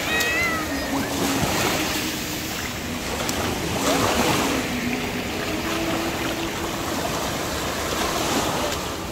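Small waves washing in over sand at the water's edge, a steady wash of surf. A short high squeal is heard right at the start, and a faint low hum comes and goes.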